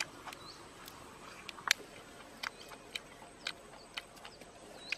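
Close-up eating sounds: wet lip smacks and chewing clicks as grilled chicken is gnawed off the bone, irregular, about one or two a second, the loudest just under two seconds in. Faint bird chirps come in between.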